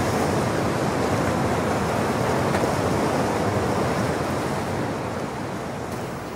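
Steady rush of falling water from a waterfall and river cascades, a dense even hiss that eases slightly near the end.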